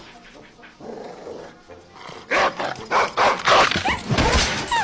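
A dog barking several times, starting about two seconds in, with music behind it.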